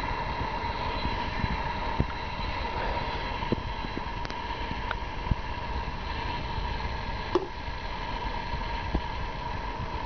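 Scarlett SC-EK21S24 stainless-steel electric kettle heating water close to the boil with its lid open: a steady rushing noise with occasional short sharp pops.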